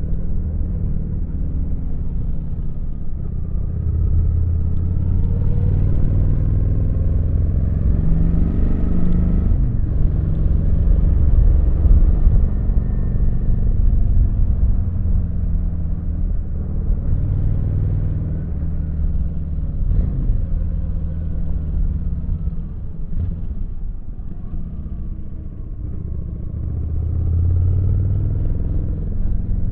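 Kawasaki VN900's V-twin engine running under way on the road, its pitch rising and falling as the throttle opens and closes, louder about 4 to 14 seconds in, easing off around 25 seconds and picking up again near the end.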